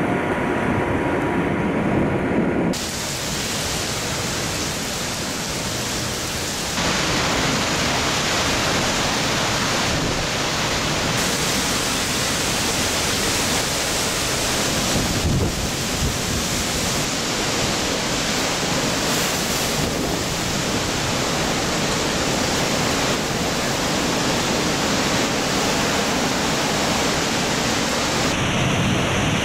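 Hurricane wind and heavy driving rain: a loud, continuous rush of noise. Its character changes abruptly several times where the footage cuts from one clip to the next.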